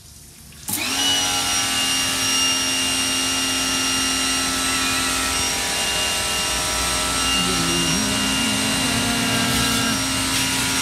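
Bosch AQT 35-12 electric pressure washer starting up suddenly under a second in, its motor and pump spinning up and then running steadily with a high whine. The water jet is spraying onto the motorcycle.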